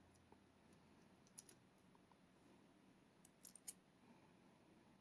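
Faint small clicks from handling pin tumbler lock parts while a pin is loaded into a rim cylinder lock: two clicks about a second and a half in, then three close together past the middle, the last the loudest.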